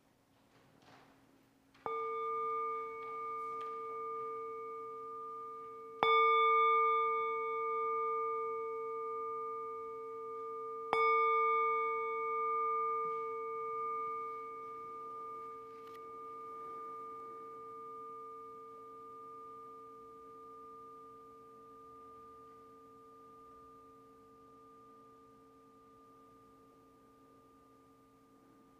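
A singing bowl struck three times, about four to five seconds apart. Each strike rings with a slightly wavering tone that slowly fades out. It calls a quiet pause before worship.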